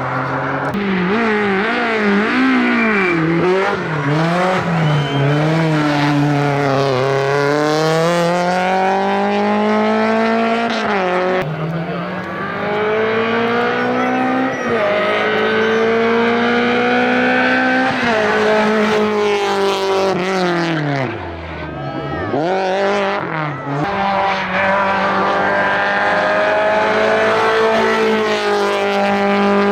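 Hillclimb race car's engine at full throttle, revs climbing through the gears with sharp drops at each shift. About two-thirds of the way through the revs fall low as the driver lifts and brakes for a corner, then climb hard again and hold high near the end.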